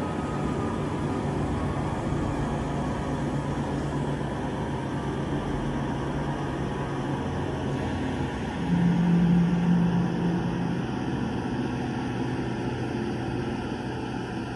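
Horror sound-effect drone: a dense, steady rumbling with low hums underneath. A louder low hum swells in about nine seconds in and lasts for about two seconds.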